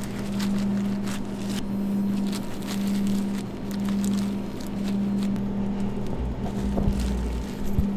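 Steady machine hum, a low drone that swells and dips about once a second, with faint clicks and rustles over it and a brief low rumble near the end.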